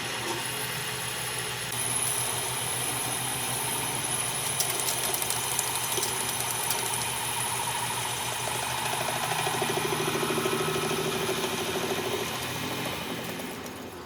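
Workshop machinery running steadily, with a thin high whine, winding down near the end.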